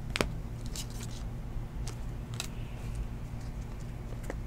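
Glossy trading cards being flipped through by hand: a handful of light, sharp clicks of card against card, about five in all and irregularly spaced, over a low steady hum.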